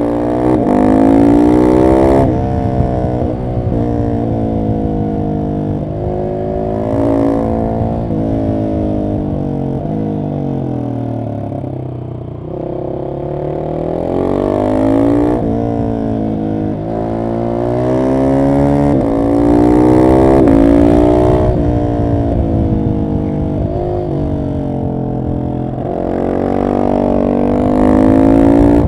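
Husqvarna 701 SM's single-cylinder engine through an Arrow exhaust with the catalyst removed and the dB killer fitted, pulling hard through the gears: the pitch climbs again and again and drops at each shift. About midway it slows down, with the pitch sinking and the sound easing off, then it accelerates again.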